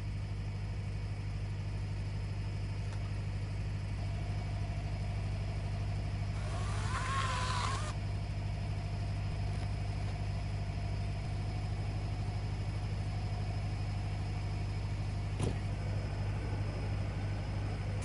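LT35 band sawmill's engine running steadily at idle, with a brief high whine from a cordless chainsaw cutting bark off the log about seven seconds in, and a single knock a few seconds before the end.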